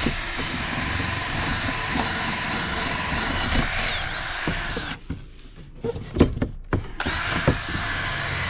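Cordless drill spinning a wire wheel brush against an old rubber windshield gasket, scrubbing off old sealant, with a steady high motor whine. The whine dips and the drill stops about five seconds in, a few knocks and clicks follow, and the drill starts again about two seconds later.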